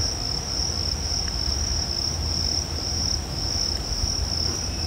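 Cricket chirring in a continuous high-pitched trill at one steady pitch, with a low rumble underneath.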